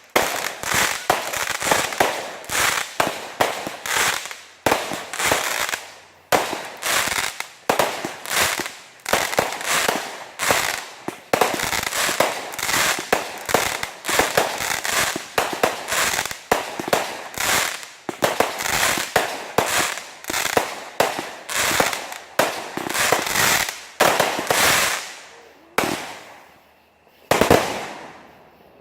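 Fireworks going off in a rapid barrage of sharp bangs, about three a second, each with a short crackling tail. The barrage breaks off near the end, and one last bang follows.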